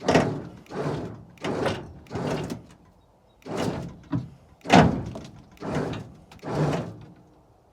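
A series of about nine heavy knocks or slams, each sudden and ringing out briefly, spaced unevenly around one every half-second to second.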